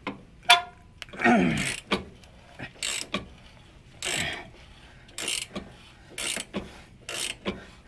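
Hand ratchet wrench clicking in short bursts about once a second, one burst on each return swing of the handle, as a rear shock absorber's mounting nut is worked loose.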